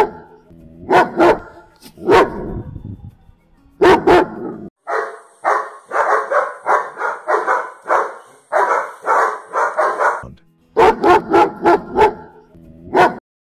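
German Shepherd barking in several runs of short, rapid barks. The longest run, in the middle, carries a faint high hiss. The barking stops just before the end.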